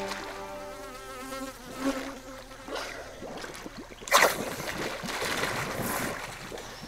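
Music fades out in the first second and a half. Then water splashing around divers at the surface of a river, with one sharp, loud splash about four seconds in.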